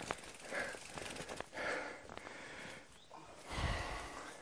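Heavy, laboured breathing of a person exerting hard on a steep climb, with a noisy breath roughly every second and a few sharp clicks. About three and a half seconds in there is a louder, deep rushing thump.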